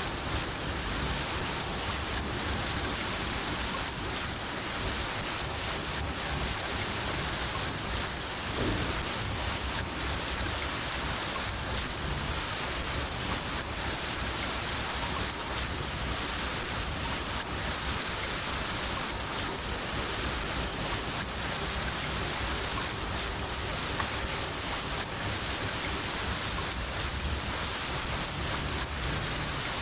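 Cricket chirping in a steady, even high-pitched pulse, about four chirps a second, pausing briefly about 24 seconds in, over the constant hiss of rain and a low rumble.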